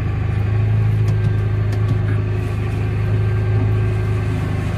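Tractor engine running steadily at a constant pitch, driving a maize chopper through the PTO shaft at 540 rpm.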